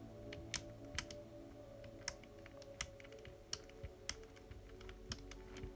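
Irregular sharp plastic clicks, roughly one or two a second, from the RC car's plastic gears and chassis as the rear differential gear train is turned by hand while grease is worked in. Faint background music runs underneath.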